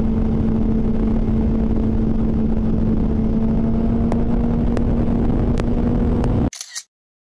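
Honda CBR600RR inline-four engine holding a steady note at highway cruise, under a heavy rush of wind and road noise, with a few faint clicks. The sound cuts off suddenly about a second before the end.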